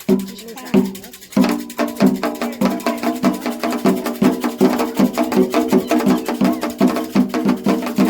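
Candomblé ritual percussion, atabaque hand drums with a struck bell or wood sound, playing a toque for Xangô. A few spaced strokes quicken into a fast, dense, steady rhythm from about a second and a half in.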